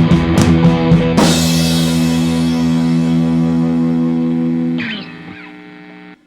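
Ending of a guitar-led instrumental track: a second of rhythmic beats with drums, then a final held chord that rings out. About five seconds in it drops sharply in level and fades, then cuts off abruptly.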